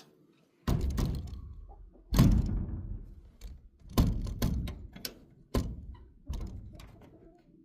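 An irregular string of about eight heavy thunks and knocks. Each hits suddenly and fades away, as when things are banged and set down around a wooden chicken coop.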